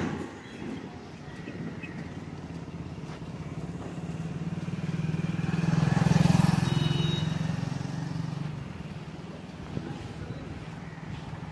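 Motorcycle engine running steadily. Another vehicle passes, growing louder to a peak about halfway through and then fading.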